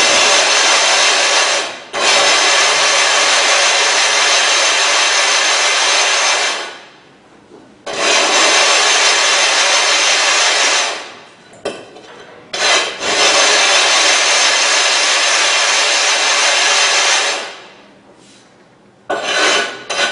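A sharpening stone being lapped flat, rubbed with loose lapping grit: a steady gritty scraping in runs of several seconds with short breaks between.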